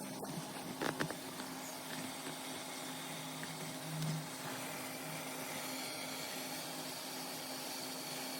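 Electric kettle heating water, a steady rushing hiss of the water near the boil, with a few light clicks about a second in.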